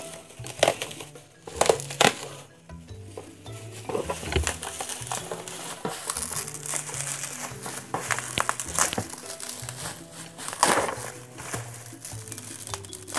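Plastic bubble wrap crinkling and rustling as it is pulled and peeled off a cardboard box by hand, with several sharper crackles. Soft background music with a slow stepping low line plays underneath.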